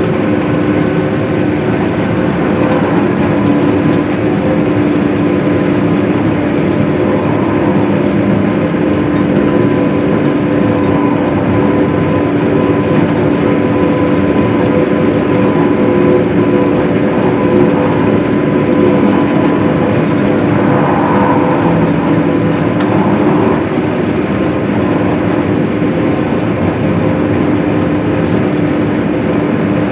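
Case IH swather running steadily while cutting hay: a continuous engine and machine drone with several steady tones.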